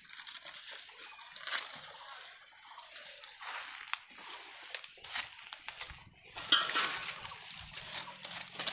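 Rustling and crackling of dry leaves and twigs, with scattered sharp snaps, busier and louder from about six seconds in.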